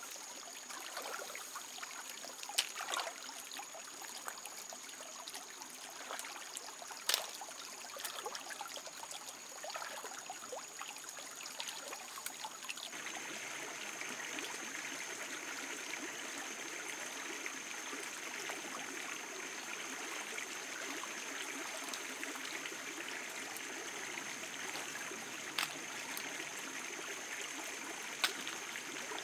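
Shallow stream trickling and running over stones, with a few sharp clicks and small splashes as hands work in the water; the flow sounds fuller after a change about 13 seconds in. A steady high-pitched whine runs underneath.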